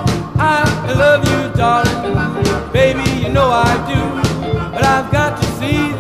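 A song: a sung lead voice sliding up and down between notes over a steady beat.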